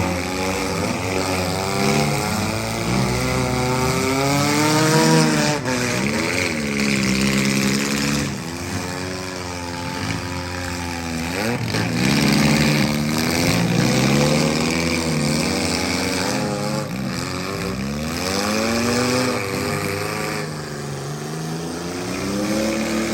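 Several compact and midsize demolition derby car engines revving up and down over one another, with a few sharp bangs from collisions.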